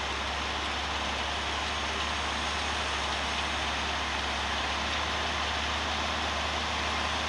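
John Deere tractor running steadily in the field: a constant low engine hum under an even hiss, with no change in speed or load.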